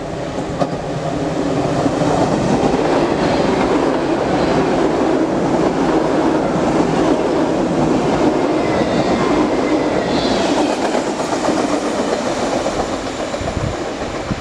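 PKP Intercity Pendolino (ED250) electric high-speed train passing through the station at speed close by: a steady, loud rush of wheels on rails that builds over the first couple of seconds and then holds.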